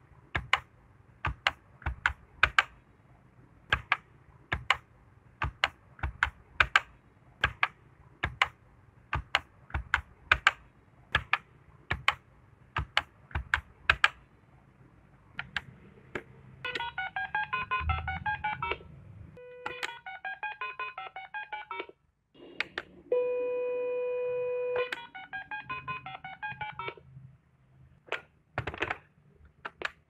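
Telephone keypad buttons pressed one after another: short dry clicks, about two to three a second, for the first half. After that, rapid runs of keypad dialling beeps and a couple of held beep tones.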